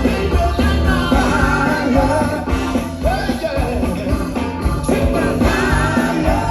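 Live funk band playing a song, with bass and drums keeping a steady beat under a lead line.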